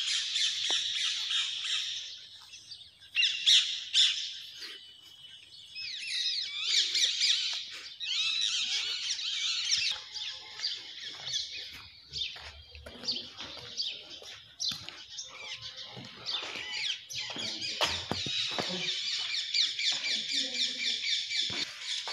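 A flock of birds chirping and squawking together in a dense, chattering chorus. It thins out around the middle and builds back up near the end.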